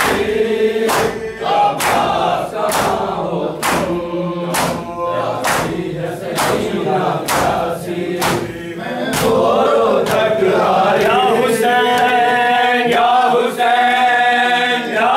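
Men's chorus chanting a Shia noha in unison while beating their chests in matam, open palms striking bare chests in a sharp slap about once a second. About nine seconds in, the chant swells into a long, held group cry and the slaps become fainter.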